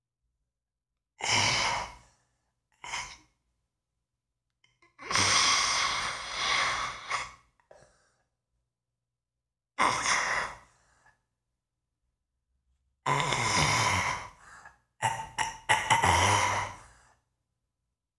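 A man sighing and breathing out heavily: about six separate long, noisy exhalations with dead silence between them.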